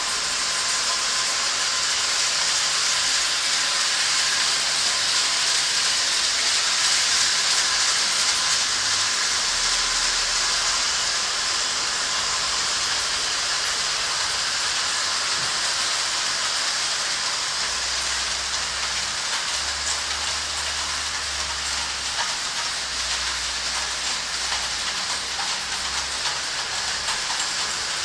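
Three-rail tinplate model trains running on curved track: a steady rolling hiss of metal wheels on the tinplate rails that swells a little in the first few seconds, with a faint low electric hum later on.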